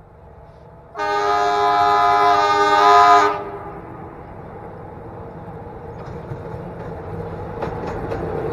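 Locomotive horn sounding one long blast of about two seconds, several notes at once, then the rumble of an approaching train growing louder.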